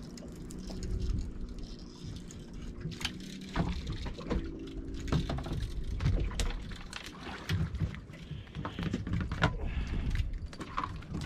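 Small fishing boat's engine running steadily at idle, with irregular clicks, knocks and rattles of rod, reel and tackle as mackerel on a string of feathers are reeled in and brought aboard.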